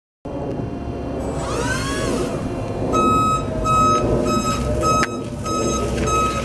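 Cat E6000 electric forklift's reverse alarm beeping about twice a second, a steady repeated beep over a rushing background, after a brief rising-and-falling whine about a second in.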